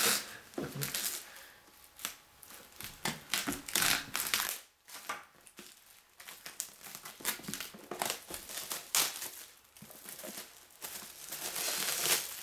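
Packaging crinkling and rustling in irregular bursts as a tablet is taken out of its box, with a longer, denser stretch of crinkling near the end.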